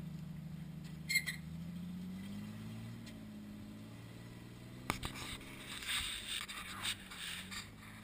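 Off-road rock crawler's engine running at low revs as it climbs a rock ledge, pitch rising briefly about two seconds in, then fading away by the middle. A brief high squeak about a second in, and irregular rustling, scraping noise with clicks in the second half.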